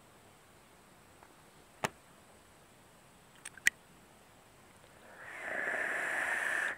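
A few sharp clicks as a rebuildable dripping atomizer (Kennedy clone) is handled, then a long inhale drawn through it: a steady airflow hiss lasting about a second and a half that stops abruptly near the end.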